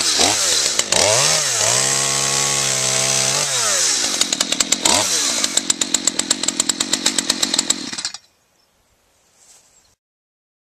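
Gas chainsaw cutting a log: the engine revs up to a steady high pitch, drops back to a rough, pulsing idle, and then cuts off suddenly about eight seconds in.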